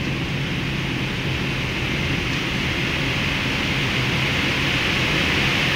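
Steady flight-deck noise of a Boeing 777 in descending flight: an even rush of air with a low hum underneath, growing slowly louder.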